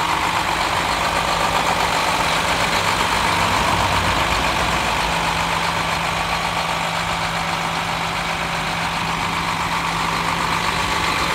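2016 International DuraStar 4400 rollback truck's diesel engine idling steadily.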